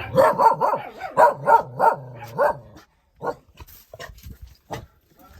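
A dog barking, about seven barks in quick succession, followed by a few short, separate knocks.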